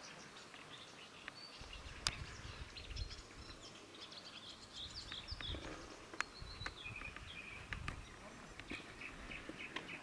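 Dawn chorus: several small birds chirping and trilling, over a low rumble, with a few sharp clicks.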